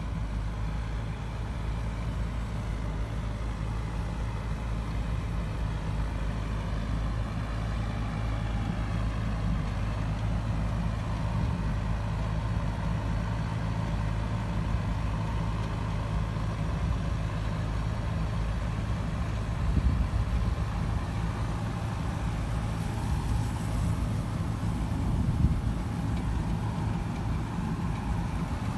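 Tractor diesel engines running at a steady speed while a tractor-drawn pumpkin seed harvester works, with a few brief louder knocks from the machinery about two-thirds of the way through.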